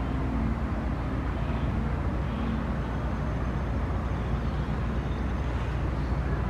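Steady outdoor background noise, mostly a low rumble, with no distinct events.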